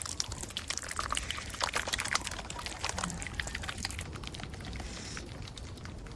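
Water pouring and spattering in many small splashes, thinning out about four seconds in.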